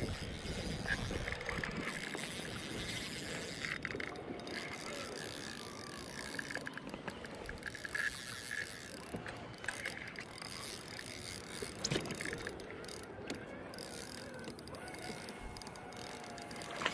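Spinning reel being cranked on the retrieve, its gears and bail whirring and clicking faintly and unevenly, over water lapping around a kayak.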